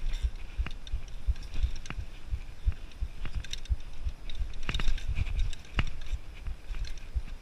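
Mountain bike jolting over rock slabs and rough trail: a run of dull low thumps from the tyres and frame, with sharp clicks and rattles from the bike's parts, the loudest clatter a little past halfway.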